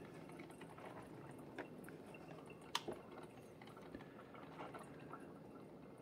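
Black+Decker CM2046S drip coffee maker brewing: faint trickling and dripping of hot water onto the coffee grounds, with a few light clicks.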